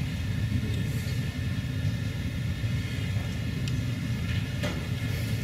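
Steady low rumble of a hall's background noise, with a faint knock about four and a half seconds in.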